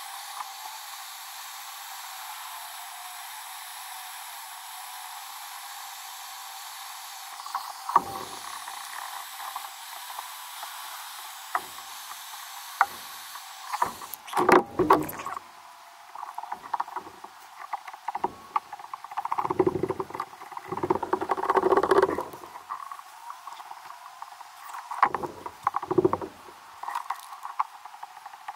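Heat gun on high heat blowing a steady hiss with a faint whine while it melts a plastic welding strip, then cutting off about halfway through. After that come scattered knocks and scrapes as a screwdriver works the softened plastic into the crack in the polyethylene hull.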